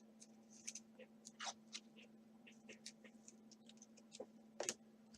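Faint handling noise: soft, scattered clicks and rustles of baseball cards being flipped through by hand, the most distinct near the end, over a low steady hum.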